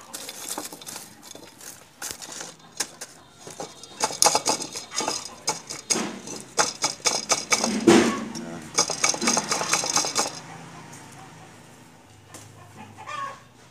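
Dry pine bark chips and lumps of charcoal clattering and clinking as they are dropped and pressed by hand into a plastic orchid pot, in a dense run of rattles from about four to ten seconds in, then quieter handling.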